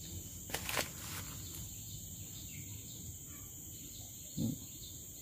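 Steady high-pitched insect chorus over a low background rumble, with a couple of light clicks under a second in and a short low sound a little after four seconds in.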